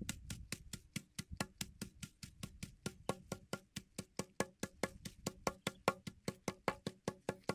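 Rapid, evenly spaced wooden knocks, about six a second, each with a short pitched ring.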